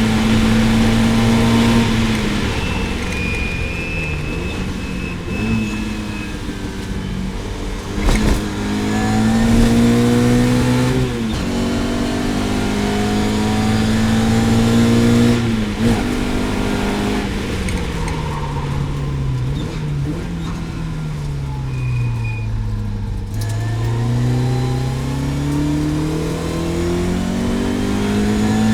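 Lotus Elan's twin-cam four-cylinder racing engine under hard acceleration, its pitch climbing repeatedly and dropping briefly at each upshift, then falling in steps as the car slows and rising again near the end. A single sharp knock about eight seconds in.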